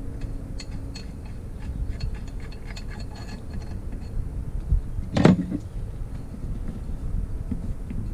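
Small metallic clicks and taps of hand tools working on an engine case, over a low rumble. There is one louder, sharp knock with a brief ring about five seconds in.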